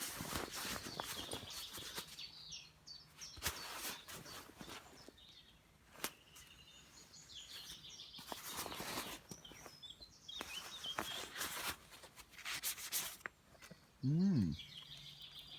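Small birds chirping, with several bursts of rustling noise, each from about half a second to a second and a half long. Near the end comes a short, loud murmur from a person's voice that rises and falls in pitch.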